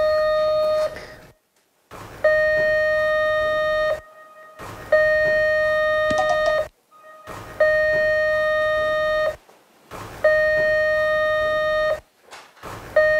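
Electronic door intercom ringing over and over. Each ring is one steady tone lasting a little under two seconds, followed by a short gap, about five rings in all.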